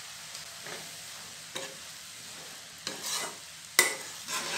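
Chopped vegetables sizzling steadily in a kadai while a metal spatula stirs them, with a few scrapes and one sharp clink of the spatula on the pan near the end.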